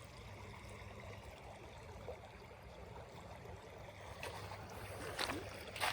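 Creek water running faintly and steadily, with a few short splashes near the end.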